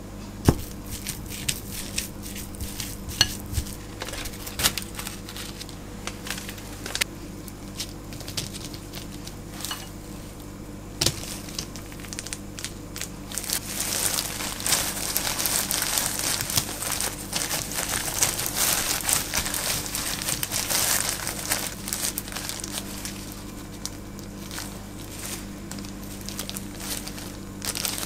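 Clicks and knocks of cooked oatmeal being mixed in a glass bowl, then a longer stretch of crinkling as disposable plastic gloves press and spread the oatmeal rice flat over a nori sheet on a bamboo rolling mat.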